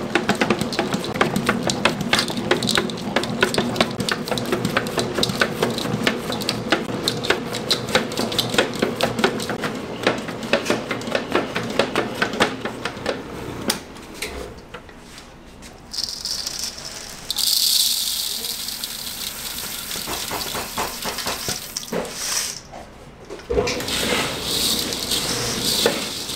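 Kitchen work at a waffle stand: rapid clattering and tapping of utensils and equipment for about half the time, then a quieter moment and a stretch of steady hissing, before the clatter starts again near the end.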